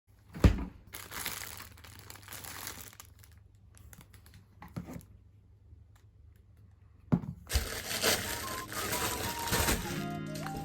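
Crinkling and rustling handling noises, like plastic or paper being moved about, broken by a few sharp knocks.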